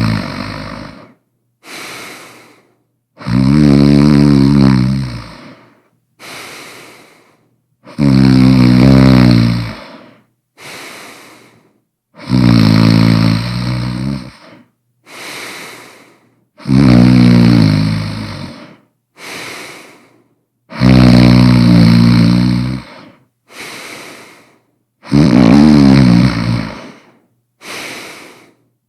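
A person snoring loudly. A long, pitched, rattling snore comes about every four seconds, and each is followed by a shorter, quieter breath.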